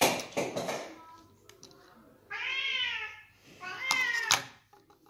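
A cat meows twice, each meow rising and then falling in pitch: the first about two seconds in and the second about a second later. Before them, at the start, comes a short, loud scuffling noise.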